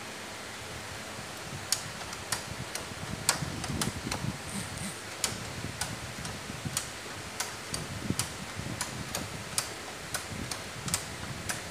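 Siemens WL air circuit breaker's closing spring being charged by hand: the charging lever is pumped and the mechanism gives a series of sharp clicks, irregular, a few a second, starting about two seconds in, over a steady background hum.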